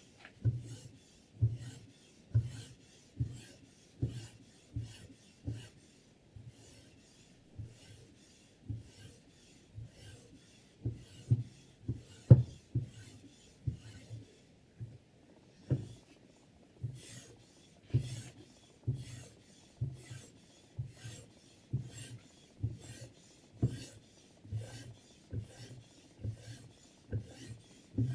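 Sharpening stone on a guided knife-sharpening system drawn in repeated strokes along a steel chef-knife edge, a short rasping scrape about once a second, with a brief pause partway through and one sharper knock of the stone near the middle.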